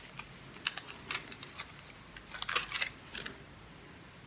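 Irregular run of quick, light clicks and taps from a small safety razor and its packaging being handled, stopping a little over three seconds in.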